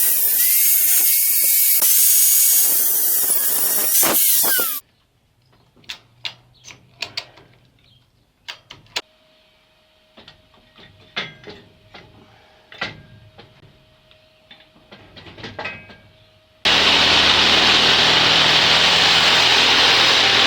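A power tool working metal, loud with a whine that sweeps down as it stops after about five seconds. Then a quiet stretch of separate clicks and knocks of metal parts being handled. Near the end a power tool starts again and runs steadily.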